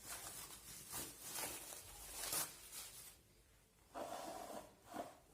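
Faint kitchen handling noises: irregular rubbing and rustling as ingredients and utensils are moved about, then a couple of short ringing sounds, like a spoon or dish, about four and five seconds in.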